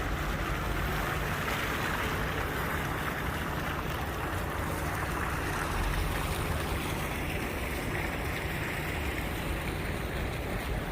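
Steady rushing ambient noise with a low rumble underneath.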